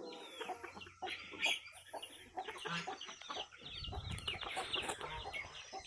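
A flock of chickens clucking, many birds calling over one another in short overlapping notes. A low rumble joins about two-thirds of the way in.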